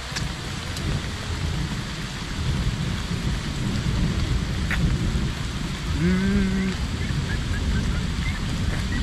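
Rain falling with a low, continuous rolling rumble of thunder.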